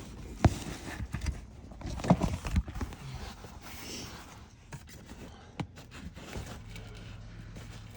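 Handling noise from a leather seat cover being worked back over a truck seat cushion: rustling with scattered sharp taps and knocks, most of them in the first three seconds, then quieter handling.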